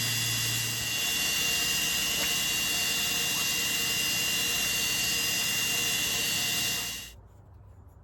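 Steady, loud rushing machine noise with a few faint whistling tones running through it, cutting off sharply about seven seconds in.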